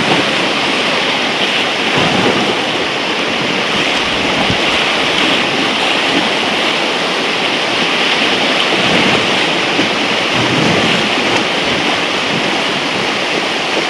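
River whitewater rushing steadily around a moving raft.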